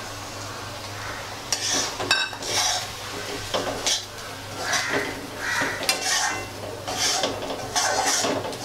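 Steel ladle scraping and clinking against a metal kadhai (Indian wok) as dry semolina is stirred into hot oil to roast it, with repeated scrapes about once a second and a ringing clink about two seconds in.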